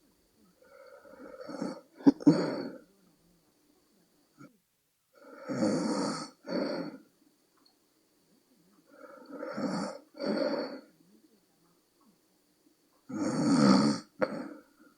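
A person snoring in sleep: four heavy, rasping breaths about every four seconds, each in two pulses. A sharp click comes in the first breath, about two seconds in, and another near the end.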